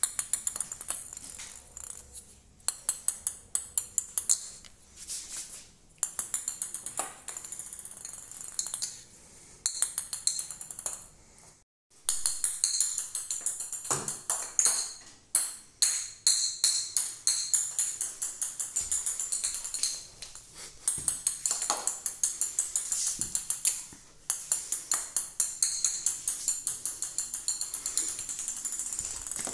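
Small jingle bell in a cat's toy ball jingling and rattling in quick bursts with short pauses as the ball is batted and rolls across a tiled floor.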